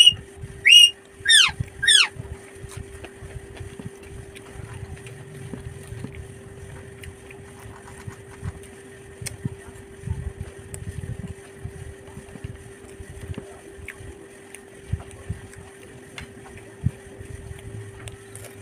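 Close-miked eating sounds: chewing with soft wet clicks and low mouth noise over a steady faint hum. The loudest thing is four short whistle-like calls in the first two seconds, each falling sharply in pitch.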